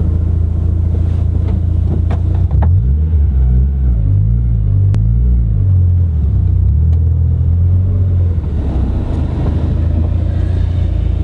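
1990 Mazda MX-5 Miata's 1.6-litre four-cylinder engine idling through a FOX cat-back exhaust. Its pitch rises and falls with a few light throttle blips from about two and a half seconds in, then settles back to a steady idle.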